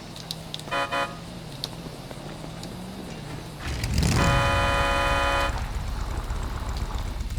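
Car horn: two short toots about a second in, then an engine rumble comes up and a long, loud horn blast of about a second and a half follows; the horn is the one called the Big Mac.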